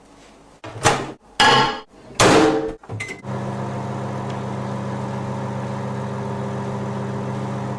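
A few loud clunks and clatters as a mug is put into a microwave oven and the door is shut, with a short beep, then from about three seconds in the microwave running on full power with a steady hum.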